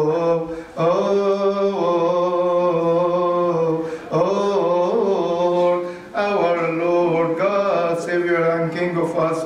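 A single male voice chanting a Coptic Orthodox liturgical hymn unaccompanied, with long held notes and winding melismatic turns. There are brief breaths about 4 and 6 seconds in.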